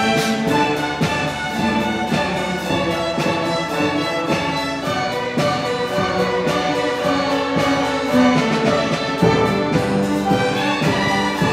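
Student string orchestra of violins, violas and cellos playing a piece with a strong driving rock rhythm: held melody notes over a steady pulse of short, repeated strokes.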